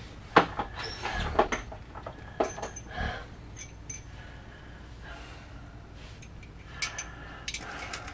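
Steel socket-wrench parts (socket, swivel and extension) clinking and knocking together as they are handled, in scattered clinks with short metallic rings. The clinks bunch in the first few seconds and again near the end, with a quieter stretch between.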